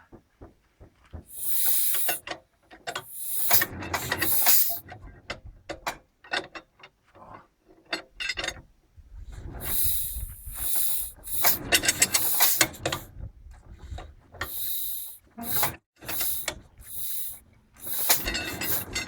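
HTZ DT-14 tractor's single-cylinder diesel engine being turned over without starting: irregular bursts of hissing with mechanical clicks and clatter, and no steady running.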